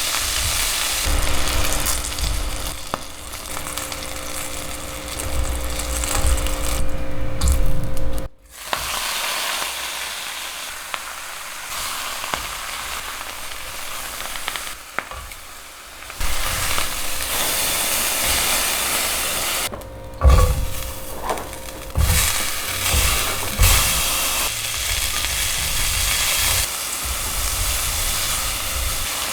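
Food sizzling and frying in a pan while it is stirred, with occasional knocks of the utensil against the pan. The sizzle cuts off abruptly and resumes twice.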